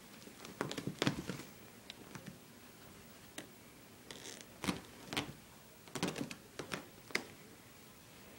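Irregular light taps, scuffs and thumps of a cat pouncing and scrambling, its paws and claws on a tile floor and then on a fabric couch, with a short rustle about four seconds in.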